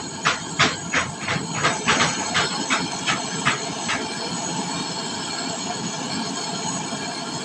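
Steady hissing of a gas brazing torch flame, with about a dozen sharp clicks, roughly three a second, over the first four seconds.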